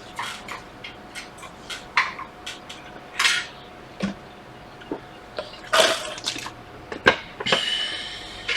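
Irregular clicks and taps with a few short rustles and scrapes, as of hands working a laptop's keys and touchpad while it boots.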